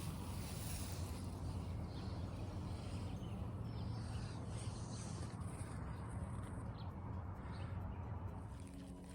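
Steady outdoor background noise with a low rumble, and a few faint bird chirps in the middle.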